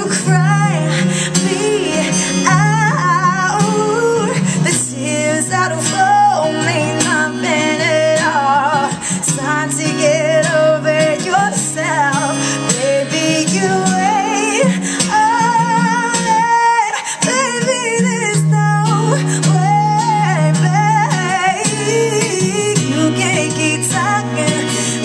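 A woman singing live into a microphone with wavering, held notes, accompanied by an acoustic guitar.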